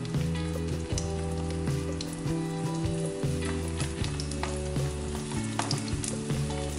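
Dried herring (tuyo) sizzling and crackling as it fries in hot oil in a pan, with a few light clicks of the tongs laying the fish in. Steady low tones run underneath.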